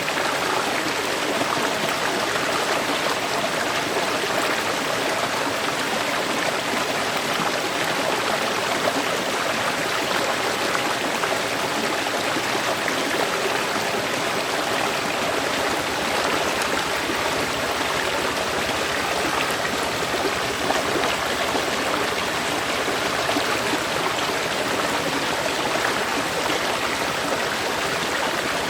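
Flowing river or stream running over rocks: a steady, dense rush of water with bubbling and splashing.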